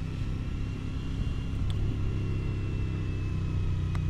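Motorcycle engine running steadily under way through the curves, a low even hum that gets a little louder partway through.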